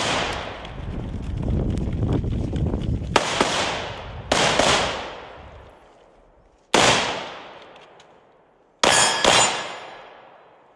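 Gunfire: an AR-15-style rifle shot right at the start, then about five handgun shots spaced one to two seconds apart, the last two close together, each trailing off in a long echo.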